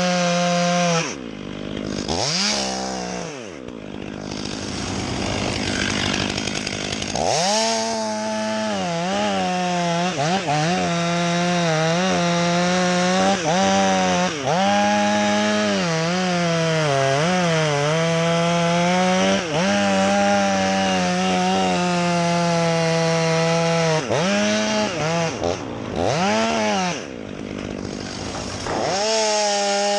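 Chainsaw cutting wood at high revs, its engine note sagging and recovering as the chain bites in. It drops back briefly about a second in and again near the end, revving up again after a few seconds.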